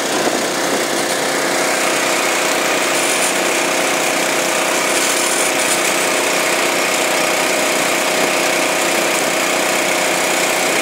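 UTV engine running at a steady, even speed while the vehicle drives slowly, a constant hum with several unchanging tones.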